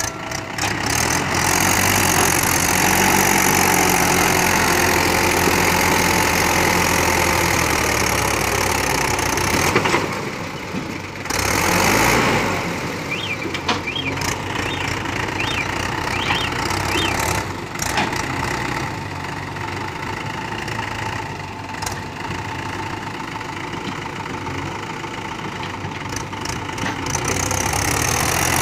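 Diesel engine of a Mahindra 475 DI tractor running hard under load as it tries to drag a loaded trolley out of mud, with a JCB backhoe loader's engine working behind it. The sound breaks off abruptly a few times.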